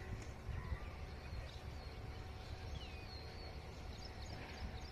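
Small birds chirping over a low, steady outdoor rumble: a few short whistled notes, then a quick run of high chirps near the end.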